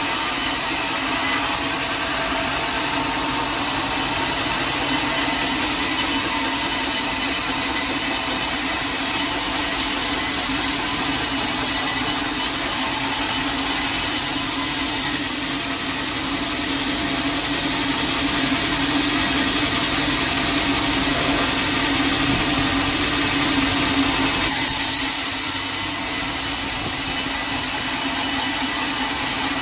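Sawmill saw cutting steadily through a log, a continuous running sound carrying steady high tones, its pitch and tone shifting a few times during the cut.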